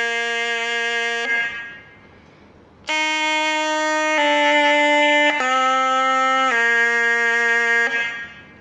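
Serunai, a Malay double-reed pipe, playing the E flat major scale downward in long held notes, each a step lower than the one before. There is a pause of about a second and a half, starting about a second in, before the notes resume.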